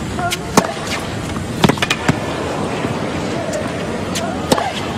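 Tennis rally on a hard court: sharp pops of rackets striking the ball and the ball bouncing, four or five times, irregularly spaced. Steady crowd and stadium noise runs underneath.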